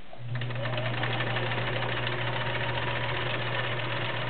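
Kenmore Model 1941 sewing machine starting up just after the start and running steadily, its 1-amp motor humming with a fast fine ticking as it sews a stretch stitch, the fabric feeding forward and back.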